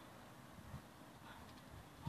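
Near silence, with a few faint low bumps.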